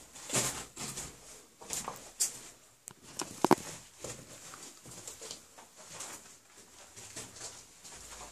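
Irregular scuffing and crunching footsteps on a gritty cellar floor, mixed with handling knocks, with a sharper knock about three and a half seconds in.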